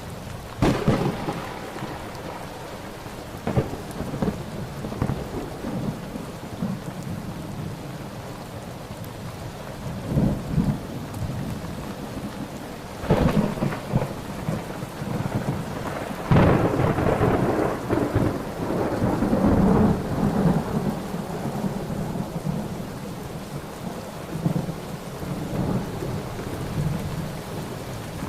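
Thunderstorm: steady rain with repeated claps of thunder, sharp cracks about a second in and again a few seconds later, then heavier peals that rumble on for several seconds past the middle.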